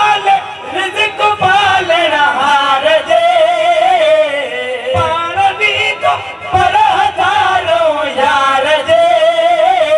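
Two men singing a Sindhi naat into microphones, in long, wavering, ornamented held notes.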